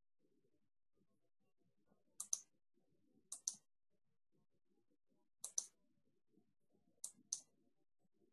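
Four pairs of faint, crisp computer mouse clicks, each pair a quick click-click, spaced a second or two apart against near silence.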